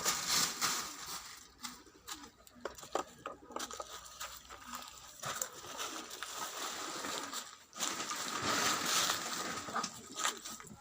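Poultry and pigeons in a rooftop coop, with scattered clicks, knocks and rustling among the birds.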